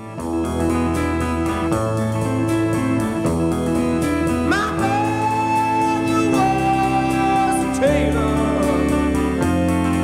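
Background music: a song with guitar and a steady beat.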